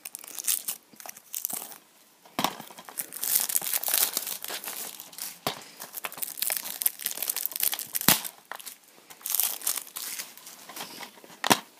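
Plastic shrink-wrap being torn and crinkled off a DVD case, in uneven bursts of crackling, with a few sharp clicks.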